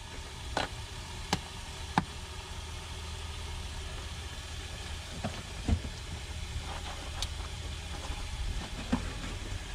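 Engine idling steadily with a low rumble, with about seven sharp clicks and knocks scattered over it.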